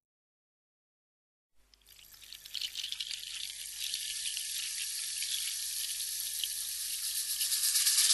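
Silence, then about a second and a half in, a crackling hiss of running water fades in and grows steadily louder: a recorded water sound opening the next song.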